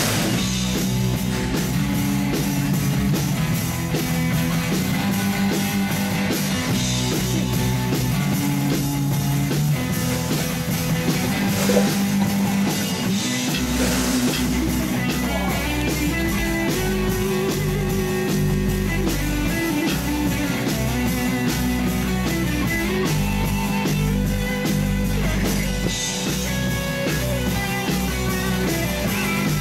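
Background rock music with electric guitar and drums playing steadily; a deep bass line comes in about halfway through.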